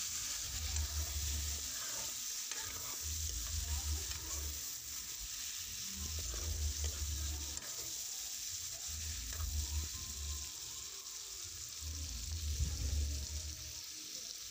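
Chicken pieces frying in oil in an iron kadai, a steady sizzle, while a metal ladle stirs and scrapes them around the pan. A low rumble comes and goes every second or two.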